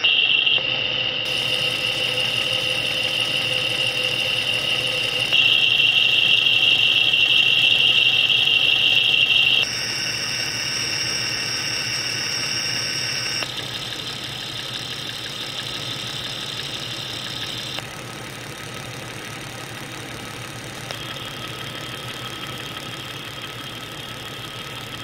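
Jeep 4.0L inline-six engine running, heard through a Steelman Chassis Ear electronic stethoscope as its knob is switched from one clamp channel to the next. Each switch, about every four seconds, abruptly changes a set of high-pitched whines and ringing over the steady engine rhythm; the loudest stretch is in the first half.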